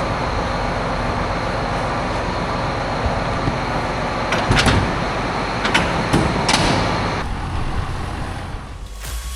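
A vehicle engine running steadily, with several sharp clunks and knocks around the middle.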